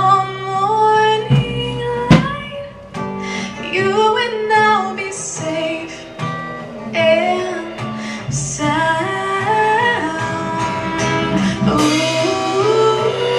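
A woman singing a slow, sliding melody, accompanied by strummed acoustic guitar. The guitar grows fuller near the end.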